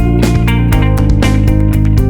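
Background music: an upbeat guitar-led groove with bass and a steady beat.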